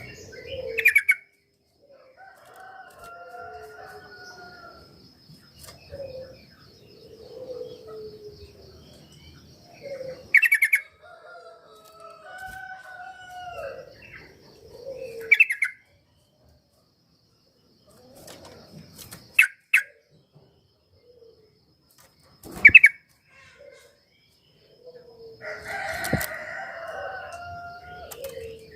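Yellow-vented bulbul (trucuk) song used as a lure to set off a bird that is slow to sing: short bubbly warbled phrases, broken every few seconds by a loud sharp call. A faint steady high ticking hum runs underneath for much of the time.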